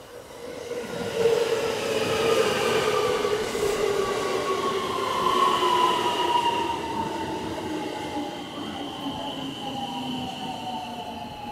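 An electric train slows down: the whine of its traction motors falls steadily in pitch over the rumble of the wheels on the rails. The sound swells about a second in and stays loud.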